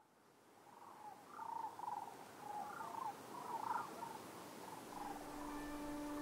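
Forest ambience fading in from silence: a steady hiss with short, warbling animal calls. A low steady tone with overtones begins about five seconds in.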